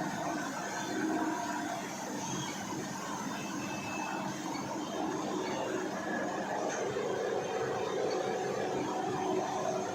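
A machine running steadily, with an even mechanical whir that holds at one level throughout.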